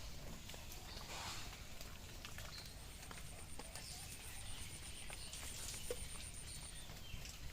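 Ducks feeding, with scattered irregular clicks and clacks from bills and jostling. A faint, high, pulsing trill runs through the background and stops near the end.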